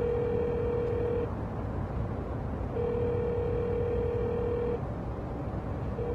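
Telephone ringback tone: a steady single-pitched tone that rings for about two seconds, pauses for about a second and a half, and repeats, as a call rings unanswered. A steady low rumble runs underneath.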